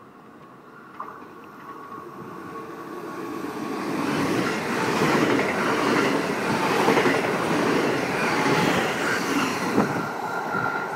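NS double-deck electric passenger train running through the station at speed. The rumble of wheels on rail swells as it comes near and is loud while the carriages pass, with a thin steady high whine near the end.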